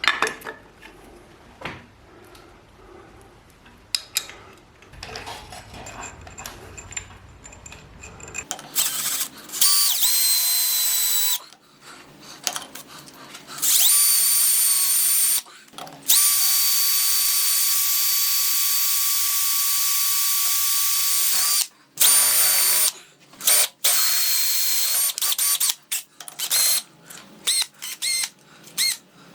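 Power drill running in bursts: light clicks and handling noises at first, then, from about nine seconds in, the drill motor whines in runs of a few seconds, the longest lasting about six seconds, followed by a series of short bursts.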